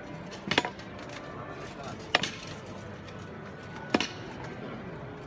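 Three sharp knocks, each with a short metallic ring, evenly spaced about every 1.7 seconds: the metal poles and fittings of a Holy Week palio float knocking as the float sways with the bearers' steps.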